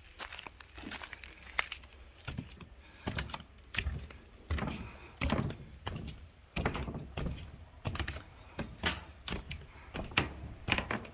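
Footsteps on a raised plastic slatted floor: irregular hollow knocks and thuds, about one or two a second.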